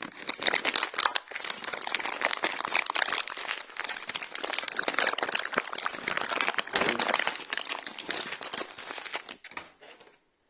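Noisy crinkling and crackling of plastic packaging being pulled open by hand, dying away near the end.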